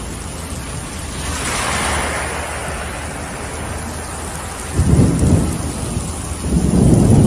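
Heavy rain pouring down in a storm, a steady rushing hiss that swells a second or two in, with deep rumbles twice in the second half.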